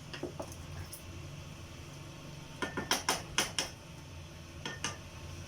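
Metal utensil clinking against a cooking pot while stirring a stew: a couple of scattered knocks, then a quick run of about five clinks in the middle and two more near the end, over a low steady hum.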